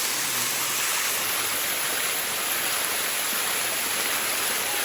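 Water cascading down the limestone steps of Bua Tong (Sticky) Waterfall: a steady, even rush of water.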